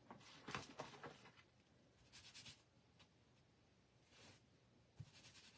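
Near silence with a few faint, soft brushing strokes, a hand rubbing over a cloth towel while handling craft pieces.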